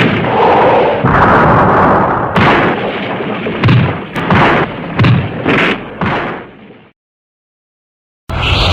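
Vintage tokusatsu battle sound effects: a long, loud explosion-like blast, then about five sharp impacts, fading out to silence a little before the end. Music with distorted guitar starts just before the end.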